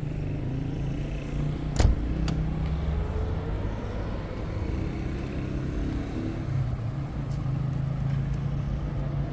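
A car engine running steadily, with two sharp clicks about two seconds in, the first the loudest.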